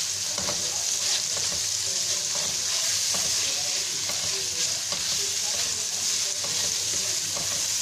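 Chopped garlic sizzling and frying in olive oil in a nonstick frying pan, steady and hissing, while a spatula stirs it with light scrapes now and then.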